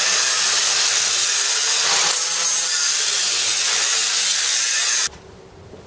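Angle grinder cutting into a steel radiator mount bracket: a loud, steady grinding noise with a held motor tone, which cuts off suddenly about five seconds in.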